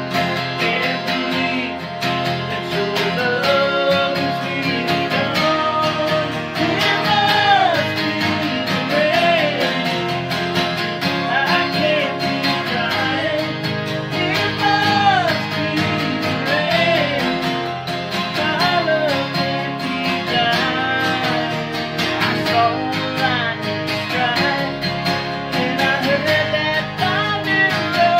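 Two acoustic guitars strummed together with a man singing a slow country song over them.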